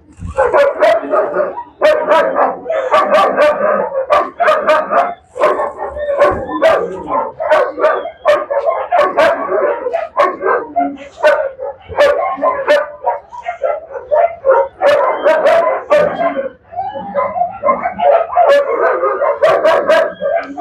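Several dogs barking and yelping almost without pause, a loud run of overlapping yips, barks and howls.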